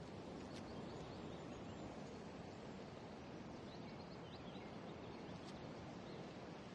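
Faint steady outdoor ambience with a few faint bird chirps near the middle.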